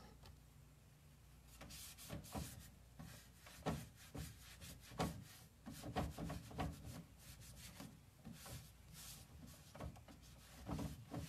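Cloth rag rubbing over a painted wooden drawer front, wiping off excess dark wax in quick, irregular strokes that begin about a second and a half in.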